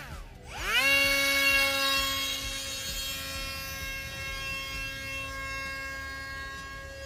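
Electric motor and propeller of a radio-controlled model plane spinning up quickly about half a second in, then holding a steady whine that slowly fades.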